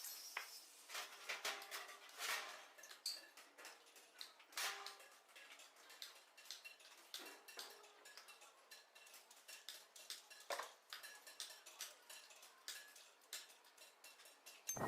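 Faint, irregular metallic clicking and clinking: small steel pieces being handled or lightly tapped, with a few louder clinks among many small ticks.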